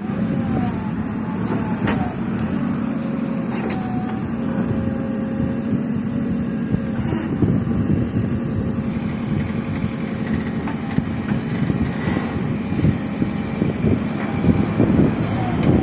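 Backhoe loader's diesel engine running steadily, with a few sharp knocks.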